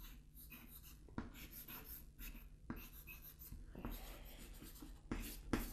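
Chalk on a chalkboard: faint scratching and tapping in short, irregular strokes as lines are drawn, with a couple of sharper taps near the end.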